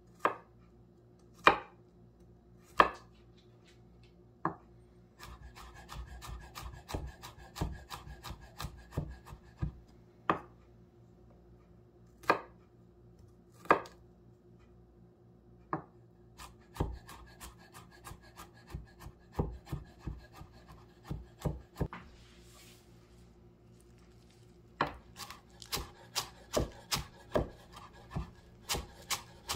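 Chef's knife chopping garlic and then cilantro on a wooden cutting board: a few single hard knocks at first, then runs of quick, rhythmic chops broken by pauses and single strokes.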